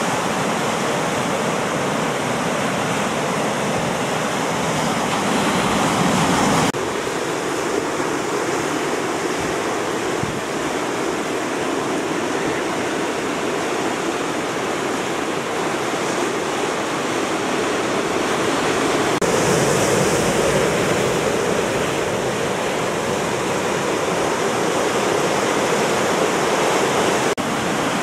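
Ocean surf breaking and washing over the rocky shoreline, a continuous rush of moving water. The sound shifts abruptly about seven seconds in and again near the end.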